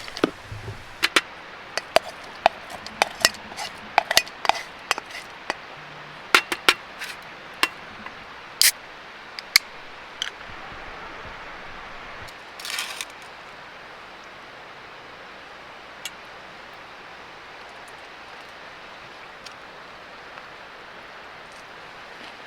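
A run of sharp clicks and clinks of small hard objects being handled, about a dozen over the first ten seconds, then a brief rustle, over a steady background hiss.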